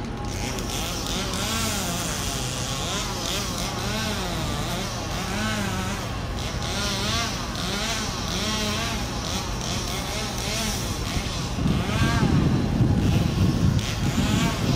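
Engine noise from passing motor vehicles: an engine whose pitch rises and falls again and again over a steady low hum, then a louder vehicle passing close by about twelve seconds in.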